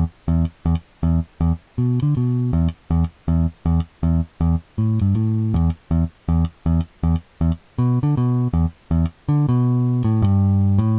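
Clean bass guitar playing a riff of short plucked notes, about three a second, with faint pink noise mixed in underneath as a soft hiss heard between the notes.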